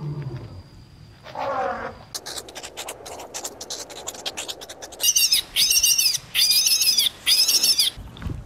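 A short elephant call about a second in, then a stretch of scratchy clicking, then four loud, high-pitched meerkat chirps in an even series.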